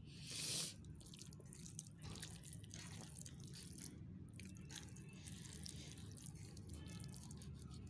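Fingers mixing and scooping rice wet with gravy on a metal plate: soft wet squishing with many small clicks, and one louder noisy burst about half a second in.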